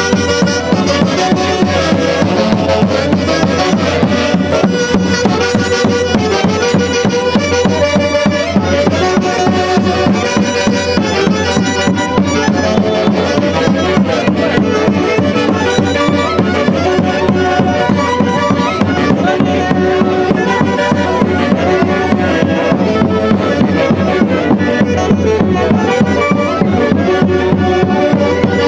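Andean orquesta from Huancayo playing a steady, loud instrumental piece: several melody instruments hold and move notes together over an even rhythmic beat.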